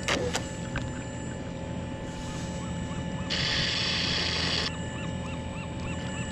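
A kayak on the water with its electric thruster motor's whine stopped: low rumbling water noise under a faint steady hum, two sharp clicks at the start, a rushing hiss lasting about a second and a half from about three seconds in, and a faint chirp repeating about three times a second in the second half.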